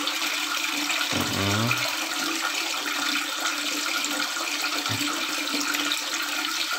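Water jetting from the outlet of an automatic float valve and splashing steadily into a nearly full tiled bath tank. The tank is still filling, with the water just short of the valve's shut-off sensor.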